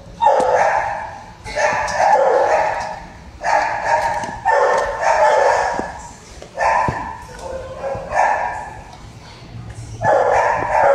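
Dogs barking in repeated bouts, a cluster of barks every second or two.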